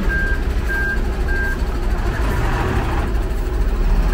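Concrete mixer truck's diesel engine rumbling close by, with a high-pitched vehicle warning beeper sounding three evenly spaced beeps in the first second and a half.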